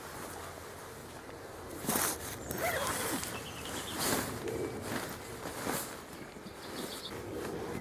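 Nylon sleeping gear being handled: fabric rustling and a zip drawn in a series of short strokes about a second apart.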